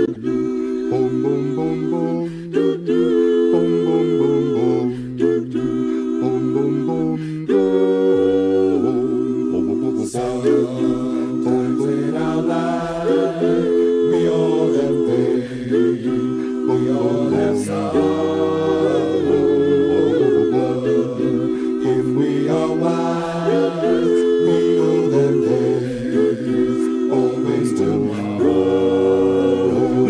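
A cappella vocal group singing in close harmony: held chords over a bass voice that rises and falls in a repeating line.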